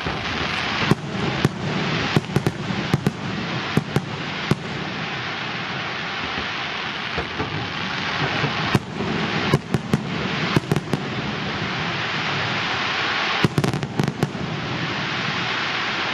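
Aerial fireworks display: a continuous dense crackling rush punctuated by many sharp bangs of shells bursting. The bangs come in clusters during the first few seconds, again around the middle, and once more near the end.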